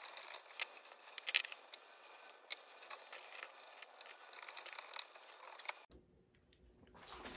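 Small sharp clicks and light scrapes of hand work on metal hardware, as idler wheels, nuts and washers are fitted. The sound cuts off abruptly about six seconds in.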